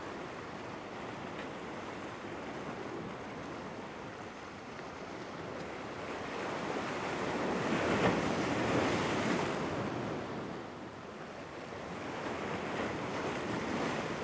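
Ocean surf washing against the jetty's boulders. One larger wave builds and breaks about eight seconds in, then the wash falls away and begins to rise again near the end.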